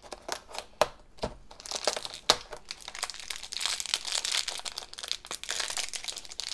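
A few sharp clicks of packaging being handled. Then, from about a second and a half in, steady crinkling and tearing of a plastic foil blind bag being torn open.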